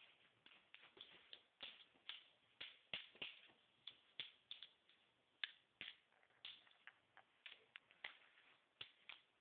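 Faint, irregular clicks and taps, a few a second.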